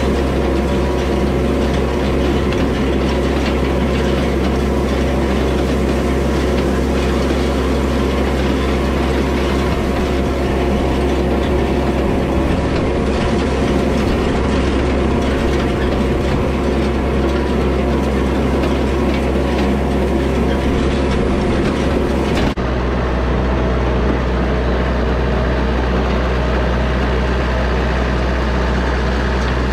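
Yanmar compact tractor's diesel engine running steadily while an antique side-delivery hay rake clatters and rattles behind it, its ground-driven reel and tines turning. Near the end the rattle drops away, leaving the engine alone.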